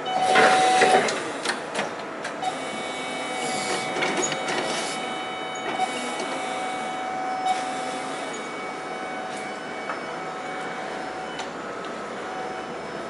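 Electric forklift working under the load of a milling machine, its motor and drive giving a steady high whine of several fixed tones. A loud noisy burst comes in the first second, with scattered small clicks after.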